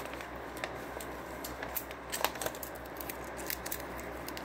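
Paper and small items being handled: scattered, irregular light clicks and crinkles.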